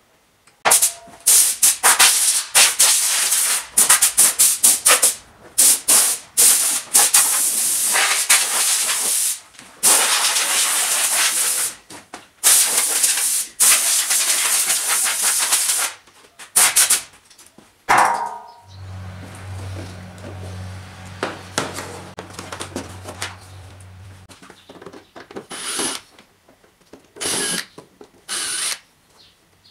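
Compressed air from an air-hose blow gun hissing in repeated short and long blasts, blowing dust off a scooter. After the blasts stop, a steady low hum runs for about six seconds, and a few short whirs of a cordless drill come near the end.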